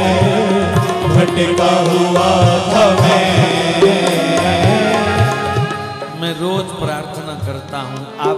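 Instrumental devotional bhajan music: a melody over steady drumming, getting quieter in the last couple of seconds.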